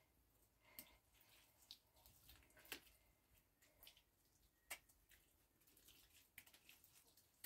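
Near silence with faint, scattered ticks and clicks at uneven intervals, two of them sharper about a third and two thirds of the way through.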